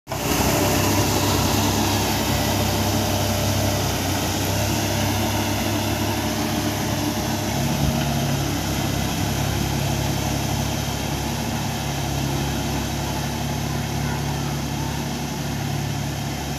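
New Holland 4710 tractor's three-cylinder diesel engine running steadily under load, driving a 42-blade Bull Agro rotovator puddling wet paddy mud. Its note shifts a little higher about seven seconds in.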